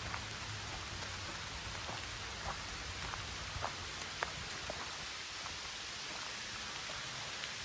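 Steady rain falling: an even hiss with scattered sharp ticks of individual drops landing close by.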